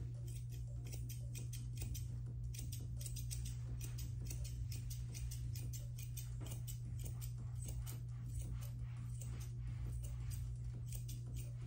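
Grooming shears snipping through a Bichon puppy's coat: a quick run of short, crisp snips, over a steady low hum.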